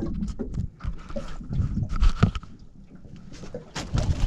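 Irregular knocks, thumps and rustling on a small boat's carpeted deck as a freshly landed flathead is handled and flaps in the landing net, the loudest thump about two seconds in.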